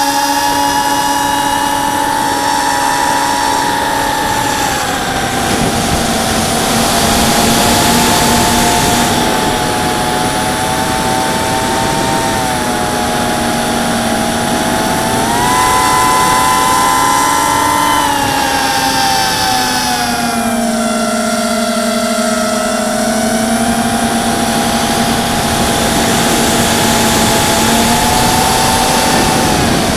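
ZMR 250 mini quadcopter's Multistar Elite brushless motors and propellers whining in flight, heard from onboard, several tones over a steady hiss. The pitch dips about five seconds in, rises near the middle, drops around twenty seconds and falls again at the end as the throttle changes.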